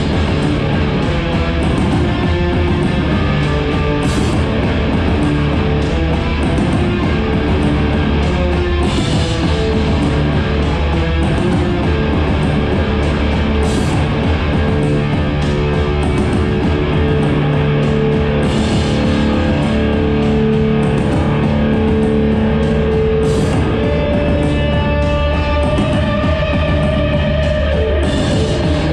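Live band playing loud, heavy rock music with distorted sustained chords and drums, and a crash every four to five seconds.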